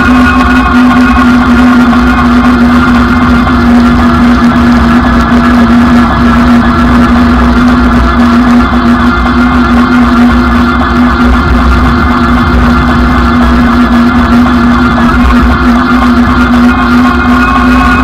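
Electric bike riding at a steady speed: loud wind buffeting the bike-mounted camera's microphone, over a steady multi-tone whine from the bike's hub motor.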